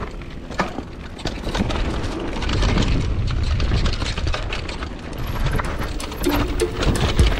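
Downhill mountain bike riding a dirt trail: a constant low rumble with many clattering knocks and rattles as the bike goes over rough ground.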